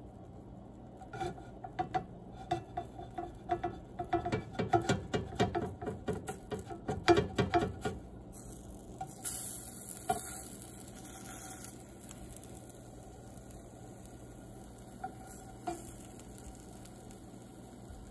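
A slotted plastic spatula working a small pancake in a frying pan: a quick run of clicks and scrapes against the pan for several seconds. About nine seconds in there is a brief hiss from the pan, then two single taps.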